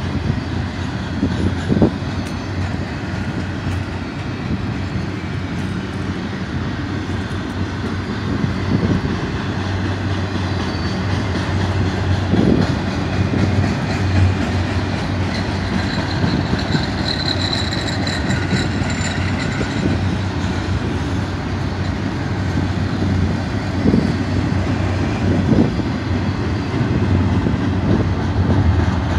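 BNSF double-stack intermodal cars rolling past at track side: a steady rumble of wheels on rail with occasional sharp knocks. A faint, brief high squeal comes a little past halfway.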